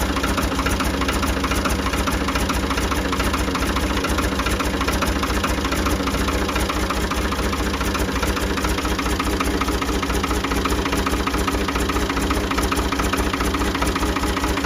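Ford 550 backhoe's engine idling steadily, with an even, rapid firing beat, while it turns a newly fitted adjustable link V-belt.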